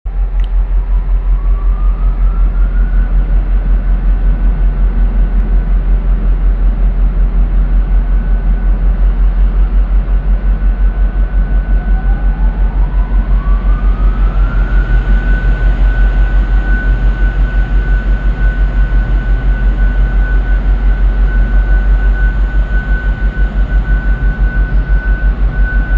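M62-series diesel locomotive running with a heavy, evenly pulsing low throb. A whine rises in pitch near the start and again about halfway through, then holds steady.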